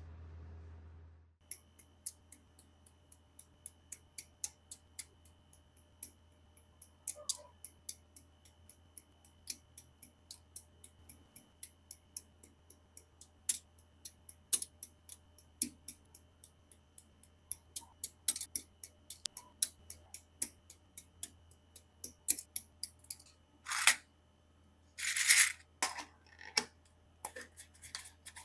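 Small sharp plastic clicks, about two or three a second, from handling and fitting parts of a Bandai Master Grade Freedom Gundam 2.0 plastic model kit, with a couple of longer rustling sounds near the end.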